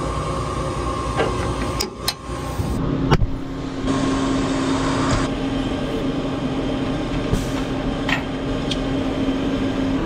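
Farm diesel engines running steadily, with a few sharp metallic clicks in the first three seconds from the header trolley's locking pins being handled. From about three seconds in, a tractor engine drones steadily with a strong low hum.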